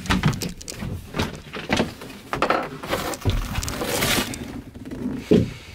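Wooden berth slats and cabin panels being lifted out and shifted about, with a run of knocks and clatter and a stretch of scraping about four seconds in.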